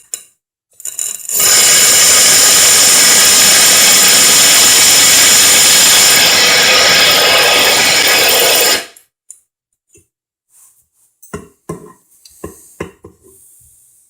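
Electric drill spinning a diamond hole saw as it grinds into porcelain tile: a loud, steady, high-pitched grinding that starts about a second in, runs for about seven seconds and cuts off suddenly. A few short light knocks follow near the end.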